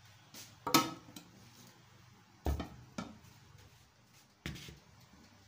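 Dishes and utensils clattering in a few separate knocks as a kitchen counter is cleared, the loudest about a second in.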